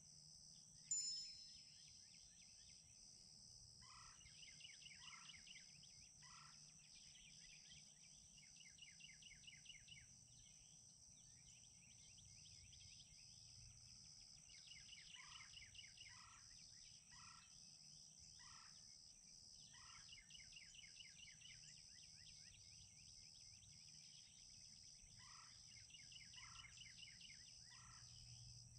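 Faint open-country ambience: a steady high insect hum with rapid trills. Several times a bird calls in groups of three to five short, falling notes about a second apart. A single sharp click comes about a second in.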